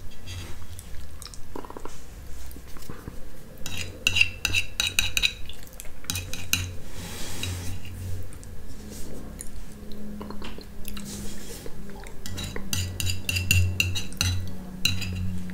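Metal spoon scraping and clinking against a white ceramic plate, gathering up the last smear of thick yogurt. The scraping is steady, with quick runs of scrapes about four seconds in and again near the end.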